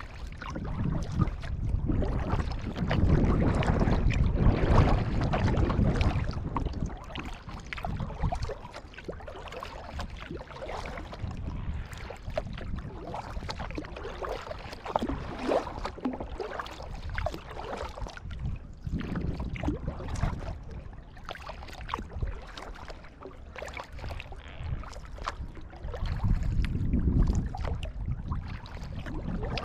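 Water splashing and dripping around a kayak as it is paddled, many small splashes and trickles. A louder low rumble swells up early on and again near the end.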